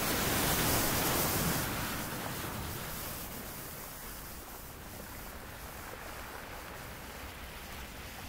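Ocean surf on the shore: a wave breaks and rushes in loudly at the start, then eases into a softer, steady wash of foam and receding water.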